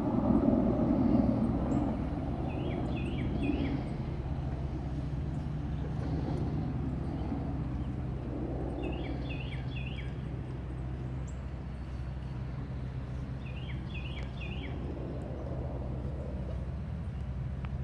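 Pigs snoring in slow, rhythmic swells about every three seconds, loudest at the start, over a steady low hum. A small bird sings a short phrase of a few quick chirps three times.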